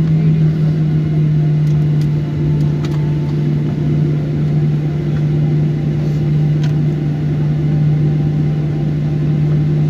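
Steady low drone inside an airliner cabin as the jet taxis after landing: one constant low hum from the engines at taxi power, with rumble beneath it and a few faint clicks.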